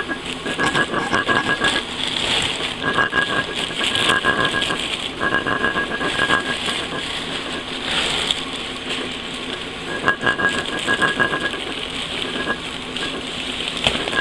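Packaging being handled and opened as a tactical vest is unpacked: rustling and crinkling, with repeated rasping stretches about a second long.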